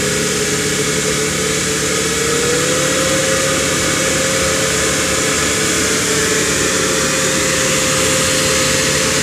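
Toyota Land Cruiser 70's engine running steadily at low revs as the truck crawls through deep mud, its pitch rising slightly about two and a half seconds in.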